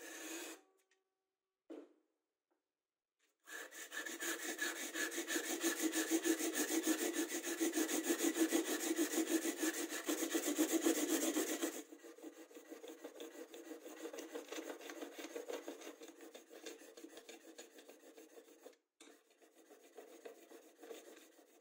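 A steel chisel held in a homemade wooden sharpening jig with a roller is pushed rapidly back and forth over sandpaper, its bevel scraping against the abrasive in quick strokes. The scraping is loud at first and drops to a quieter rubbing about twelve seconds in. It stops briefly near the end and then goes on.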